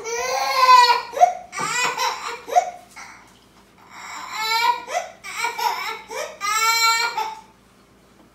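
Young child crying in several high-pitched bouts with short gaps between them, taken for a fake cry.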